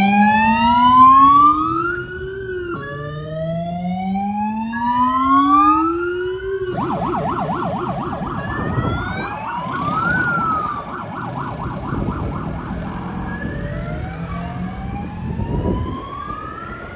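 Electronic siren of a fire-brigade vehicle pulling away: a slow rising wail that resets every few seconds, switching about seven seconds in to a fast warble, then returning to fainter rising sweeps as it fades into the distance.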